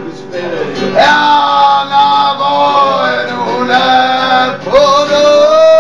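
A man singing loudly to a strummed acoustic guitar, his voice swooping up into each phrase and ending on a long held note.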